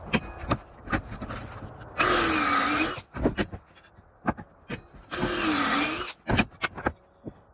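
Power drill boring screw holes into the back of a maple face frame, in two bursts of about a second each, its motor pitch dipping under load and then rising. Short knocks and clicks from handling the workpiece and tool come between the bursts.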